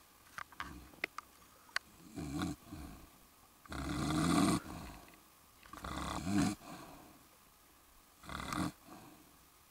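A man snoring in his sleep with his mouth open: four snores spaced about two seconds apart, the longest and loudest about four seconds in. A few light clicks come in the first two seconds.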